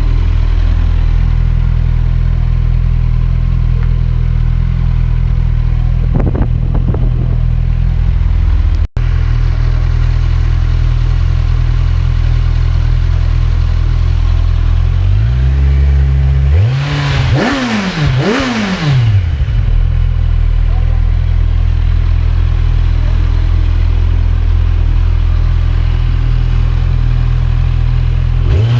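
Kawasaki Z1000 R's inline-four engine on its stock exhaust idling steadily, with a small throttle blip about six seconds in. Around the middle come a few quick revs, the pitch rising and falling with each, before it settles back to idle.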